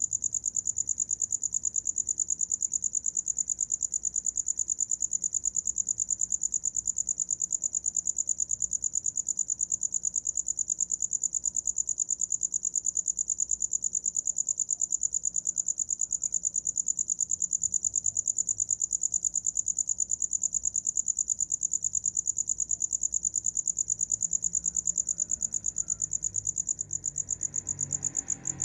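A cricket chirping: a high, steady trill pulsing rapidly and evenly, dipping briefly in loudness near the end.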